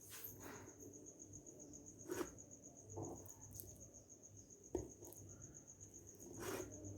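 A cricket chirping in a steady, fast, even trill, with a few faint knocks and taps scattered through.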